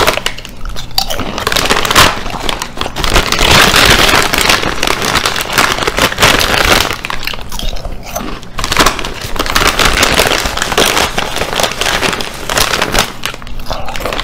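Loud, close crunching of snack chips being chewed, mixed with the crinkle of the plastic chip bag as a hand reaches into it, with brief lulls between mouthfuls.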